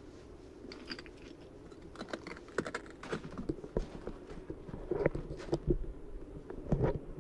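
Footsteps crunching and clinking over loose lava rock and cinder gravel, irregular, growing louder and closer together in the second half, over a faint steady hum.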